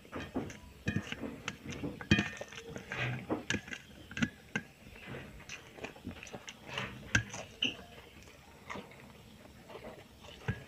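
Close-up eating sounds: chewing with irregular wet smacks and sharp clicks, several a second, as a spicy stingray dish is eaten.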